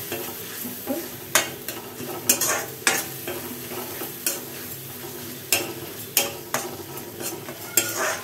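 A steel spoon stirring and scraping chopped tomatoes and onions frying in oil in a metal kadai: a steady sizzle, broken by irregular sharp scrapes and knocks of the spoon against the pan.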